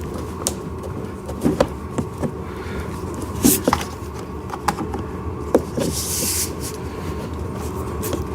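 Scattered light clicks and knocks as the plastic parts and wiring of a kids' ride-on car are handled and fitted, over a steady low background hum.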